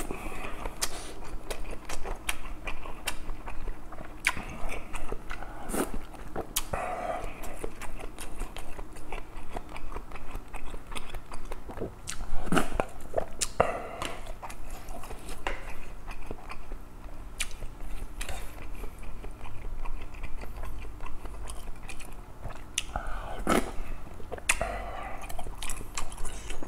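Close-miked chewing of kimchi stew with pork belly, tofu and rice: wet mouth sounds with many short sharp clicks scattered throughout.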